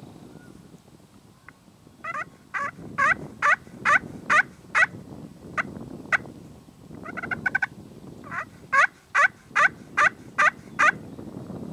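Wild turkey yelping: two runs of evenly spaced yelps, about two to three a second, with a quick burst of short notes between them.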